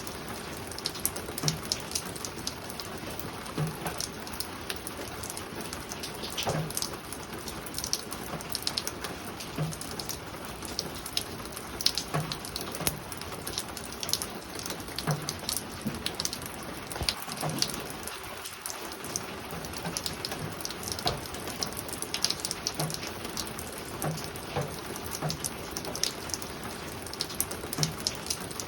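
Spring rain falling softly on a roof: a steady hiss full of sharp individual drop taps, with short low knocks from heavier drips about every second or two.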